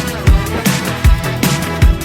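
Stock background music from Artlist with a steady beat, a heavy kick drum landing about every three-quarters of a second.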